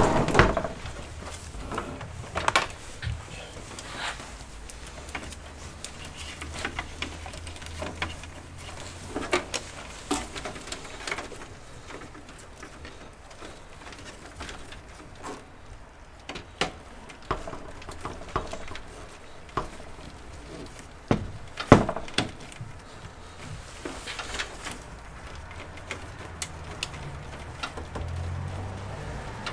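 Scattered clicks, taps and knocks of cables and plastic parts being handled and routed inside a desktop PC case, with the sharpest knock about two-thirds of the way through. A faint low hum comes and goes underneath.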